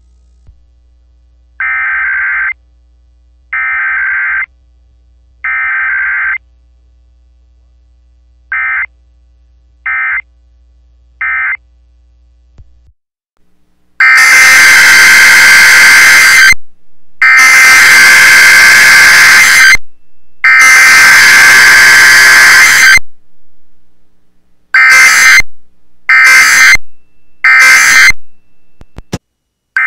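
Emergency Alert System SAME data bursts from an alert receiver: three buzzing header bursts about two seconds apart, then three brief end-of-message bursts. About 14 seconds in comes a much louder set of three longer header bursts, about two and a half seconds each, then four short bursts.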